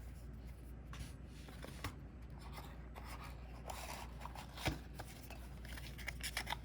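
Trading cards being handled and slid against each other: soft rubbing with scattered light clicks and taps, the sharpest a little before five seconds in and a few more near the end.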